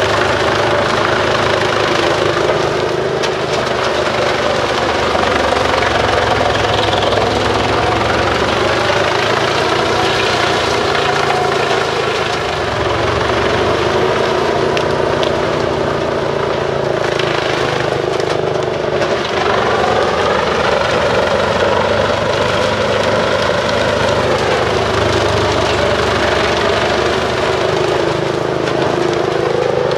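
Truck-mounted Bruks 1006 ST wood chipper running on its separate 720 hp engine while chipping forest waste. The engine's pitch dips briefly about two-thirds of the way in, then sags and recovers near the end as it is loaded by the chipping.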